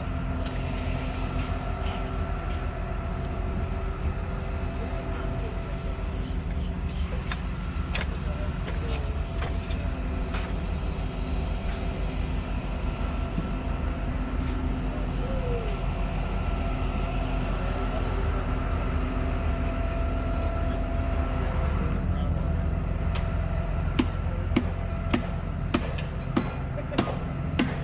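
Heavy construction machinery engine running steadily. A run of sharp knocks comes in near the end.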